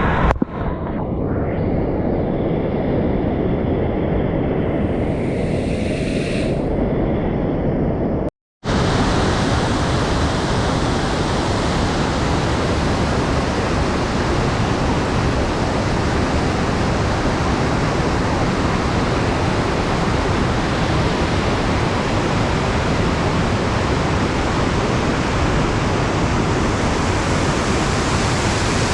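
Waterfall water rushing, a loud steady wash of noise. It breaks off for a moment about eight seconds in and comes back brighter and fuller.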